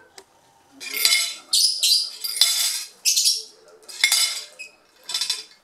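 Metal fork scraping and clattering on a ceramic plate as a blue masked lovebird grabs it with its beak and drags it about. It comes in about six short rattling bursts.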